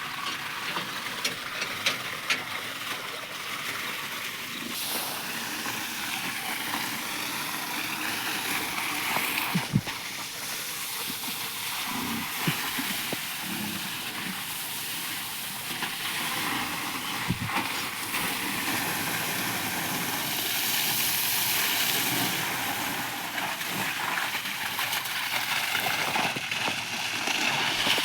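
Steady hissing rush of water spraying, with a few short knocks.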